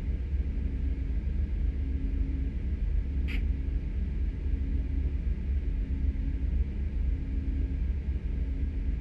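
Amtrak GE Genesis diesel locomotives idling while the train stands still, a steady low rumble with a slight regular pulse. A short hiss comes about three seconds in.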